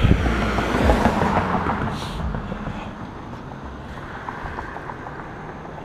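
A car passing close by on the bridge roadway. The noise of its tyres and engine is loudest in the first second or so and then fades away.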